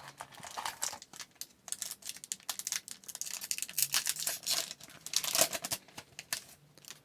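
Trading-card pack wrapper being torn open and crinkled by hand, a dense run of irregular crackles that stops near the end.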